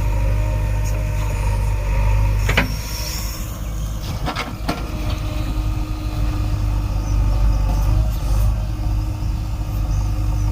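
JCB 3DX backhoe loader's diesel engine running steadily, with a sharp knock about two and a half seconds in and a few more knocks about four seconds in.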